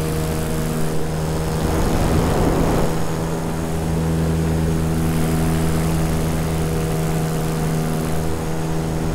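Electric paramotor's motor and propeller running steadily in cruise flight, an even hum with a stack of steady tones and a rush of noise above it.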